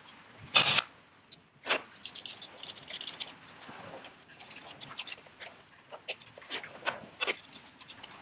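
Metal hand tools and bolts clanking, clinking and rattling against steel while the engine mounts are being bolted in. A sharp clank comes about half a second in and another a second later, then a run of quick rattling clicks and scattered knocks.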